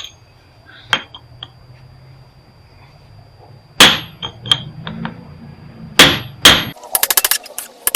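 Heavy metal-on-metal strikes as an axe is driven into the seam of an old welder's resin-filled transformer to split it open: a light tap about a second in, then three hard blows, the last two close together, followed by a quick rattle of small clicks near the end.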